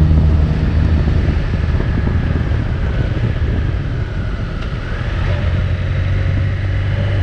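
Motorcycle engine running steadily, with a low hum under a rush of wind noise on the microphone while riding.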